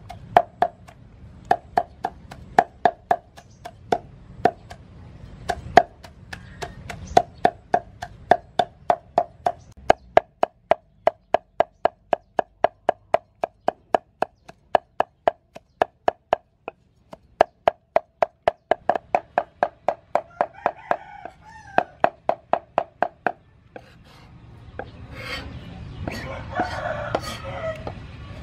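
Steel cleaver chopping soaked dried red peppers into paste on a thick round wooden chopping board: a steady run of knocks, about three a second, that stops near the end.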